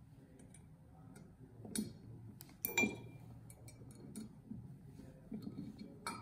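Light metallic clicks and clinks from a small Allen wrench, button head screw and nylock nut handled on a metal clamp plate, a few scattered ticks with the loudest a little before the middle.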